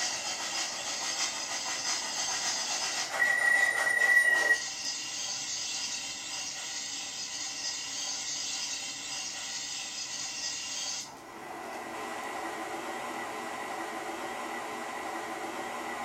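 MTH Proto-Sound 2.0 sound system of a Climax geared logging locomotive model playing steam locomotive running sounds: a steady steam hiss, broken about three seconds in by a loud high whistle of about a second and a half. About eleven seconds in the hiss stops and a lower, steady running sound carries on.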